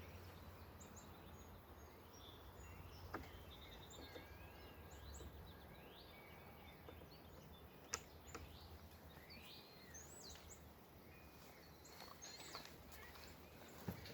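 Near silence outdoors: birds chirping faintly over a low steady rumble, with a couple of faint clicks, about three and eight seconds in.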